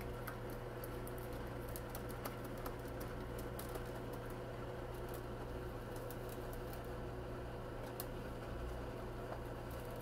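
Cockatiels splashing in shallow dishes of water, flapping and shaking their wet wings: an irregular patter of small splashes and droplet ticks over a steady low hum.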